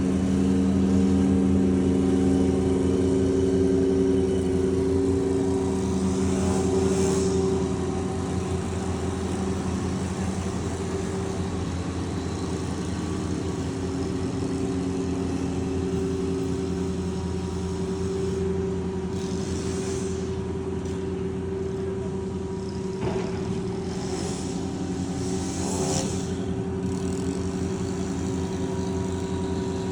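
Lawn mower engine running steadily with a continuous drone, louder for the first several seconds and then settling a little quieter.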